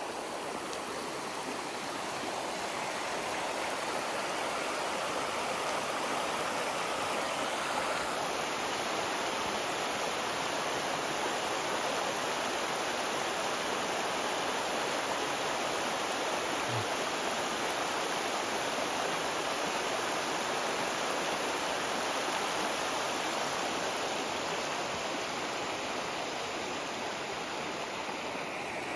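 Shallow, rocky river running over stones: a steady rush of water.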